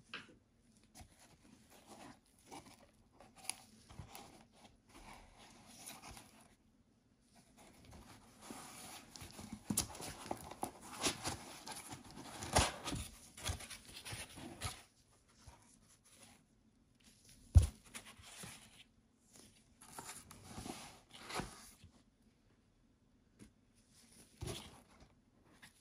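Cardboard shipping box and foam packing inserts being handled by hands in nitrile gloves: irregular rustling, scraping and crinkling of cardboard and tape, with one sharp knock about two-thirds of the way through.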